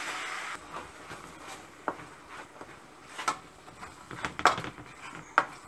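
Metal spoon scraping and clinking against a pan while ground coconut masala paste is stirred and fried in hot oil, with a short sizzle at the start. The scrapes and knocks come irregularly, the loudest about four and a half seconds in.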